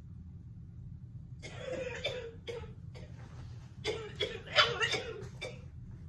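A woman coughing and crying out in short bursts as baby powder blown down by a ceiling fan falls on her: once about one and a half seconds in and again in a cluster from about four seconds. A steady low hum of the running fan lies under it.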